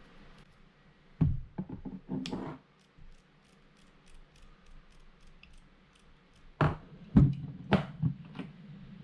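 Handling knocks and clicks from a lever-drag fishing reel: a cluster of sharp knocks about a second in, a run of faint light ticks in the middle, and a second cluster of louder knocks near the end.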